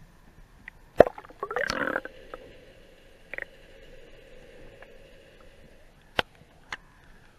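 Muffled sound picked up by a camera held underwater: a sharp knock about a second in, a short rush of noise just after with a faint steady hum that fades out past the middle, and a couple more clicks near the end.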